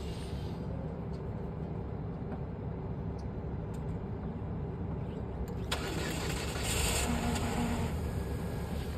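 Cold start of a Jetour Dashing's engine, heard through the open door: a steady low running sound, then a sharp click about six seconds in and a louder stretch lasting a couple of seconds. It carries the extraneous start-up noise from the starter side that the owner hears on cold starts and cannot explain.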